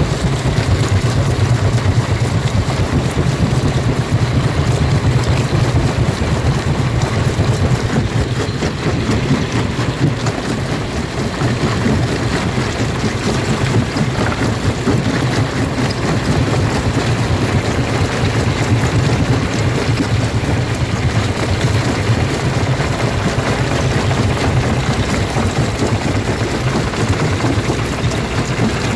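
Jaw rock crusher running under load: a steady heavy low rumble with continuous grinding and cracking of stone.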